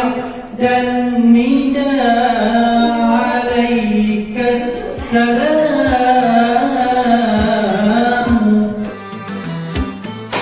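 A voice singing a slow, ornamented melody, its long held notes gliding up and down. Near the end the singing stops and quick, even percussive taps come in.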